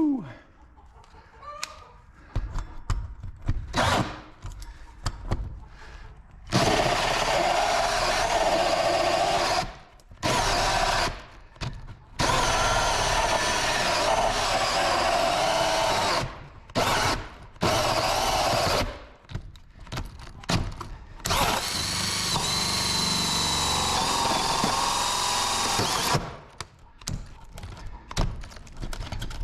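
A hand-held power tool runs in about five bursts of one to four seconds each, with short pauses and clicks between them, as it cuts out the opening in the wall for the stove pipe.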